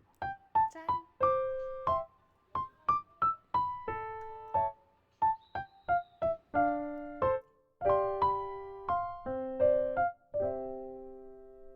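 Background music: a solo electric piano playing a light melody of separate notes and chords, ending on a held chord that fades out.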